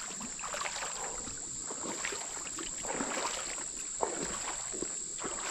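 Irregular sloshing and swishing of water as someone wades through a shallow creek, with a steady high insect trill behind.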